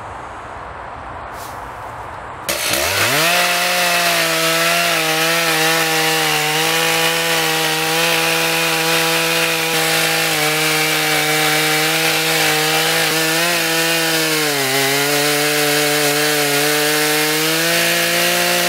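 Stihl two-stroke chainsaw mounted on a chainsaw mill, ripping a slab lengthwise through an oak stump at full throttle. It revs up sharply about two and a half seconds in and holds a steady high note under load. The pitch dips briefly about two-thirds through as the cut bogs it, then picks up again near the end.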